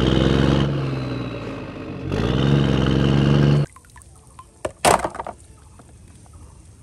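Motorcycle engine running under way, its pitch sagging as it eases off, then climbing again as it pulls, before it cuts off suddenly a little past halfway. After it come a few short splashes and knocks of water.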